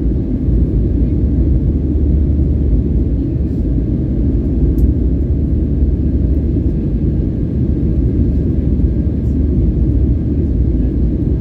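Steady low rumble inside the cabin of an Airbus A319-115 climbing after takeoff: its CFM56 turbofan engines and the airflow over the airframe, with a faint steady whine above the rumble.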